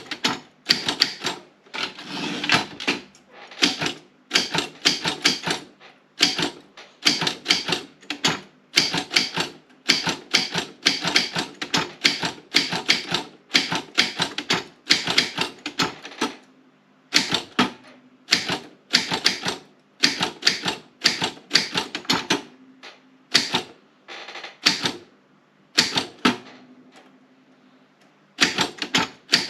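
Optima M16 manual typewriter being typed on: irregular runs of sharp key strikes as the typebars hit the platen, broken by short pauses, with a longer quiet gap near the end.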